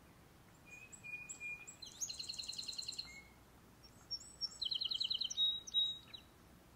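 Song sparrow singing twice, each song a few short introductory notes followed by a fast, rapid trill.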